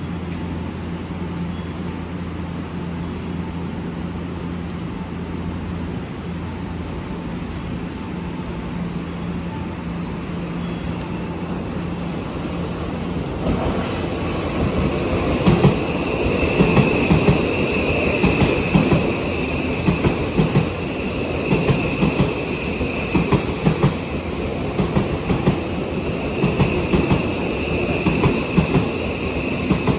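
Odakyu commuter train on the rails: a steady low hum for the first dozen seconds. Then, about 13 seconds in, the noise of a train moving along the track takes over, with a regular clickety-clack of wheels over rail joints about once a second and a steady high whine.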